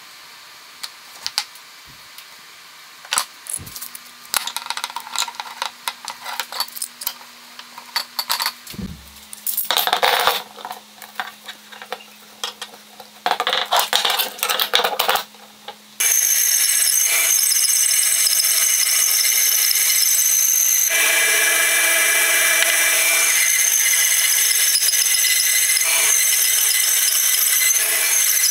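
Scattered clicks and metallic rattles of bar clamps being handled and tightened on a glued wooden block. About halfway through, a bench bandsaw starts abruptly and runs steadily, growing fuller a few seconds later as the blade cuts into the wooden block.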